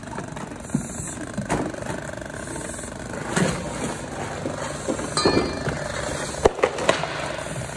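Scattered knocks and scrapes of a firefighter's gear and air bottle against wooden studs and broken sheetrock, with a quick run of sharp knocks near the end, over a steady background noise.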